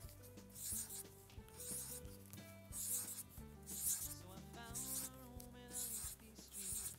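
Felt-tip marker scratching on paper in a series of short strokes as spirals are drawn, over soft background music.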